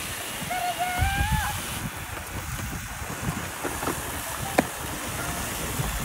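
Several robot vacuums running with a steady whirring hiss, and wind rumbling on the microphone about a second in. A short high-pitched call rises about half a second in, and a single sharp click comes near the end.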